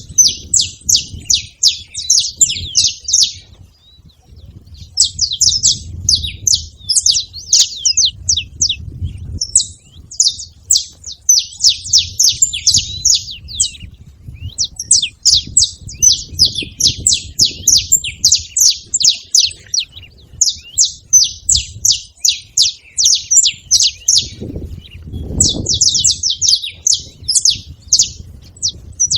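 Saffron finches singing: fast runs of high, sharp chirps, several a second, in phrases of two to four seconds separated by short breaks.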